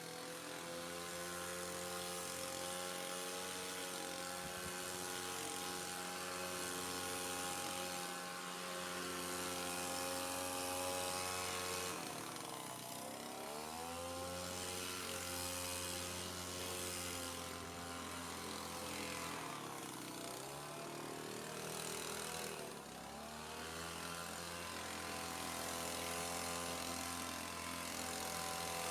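Kasei petrol blower running at working throttle, its engine note dipping and climbing back as the throttle is eased and reopened, about twelve seconds in and twice more around twenty seconds.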